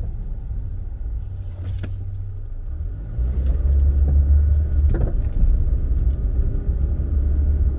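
Car interior road noise with a low rumble that gets louder about three seconds in, and a couple of short knocks from the rear suspension over bumps. The owner suspects this knocking comes from a worn strut mount.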